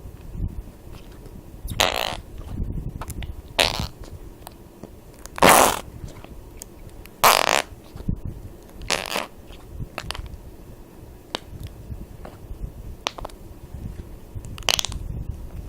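A series of about seven short fart noises, a second or two apart, each lasting less than half a second. The loudest comes about halfway through.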